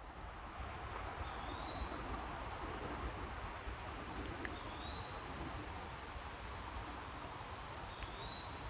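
Late-summer insect chorus of crickets trilling steadily, a high, evenly pulsing buzz, with a few short faint chirps over it.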